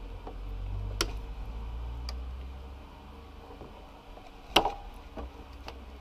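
A hand tool clicking and tapping on the motorcycle as a fastener is worked, a handful of scattered sharp clicks over a low rumble. The loudest click comes about four and a half seconds in.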